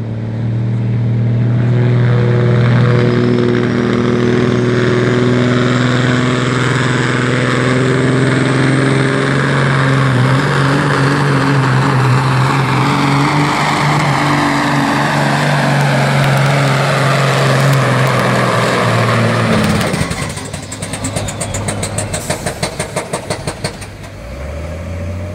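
Diesel semi truck engine pulling a weight sled at full throttle, loud and steady for about twenty seconds with a high whine over it. The throttle then cuts and the sound drops to a fast rhythmic chatter. Near the end the engine revs up again briefly.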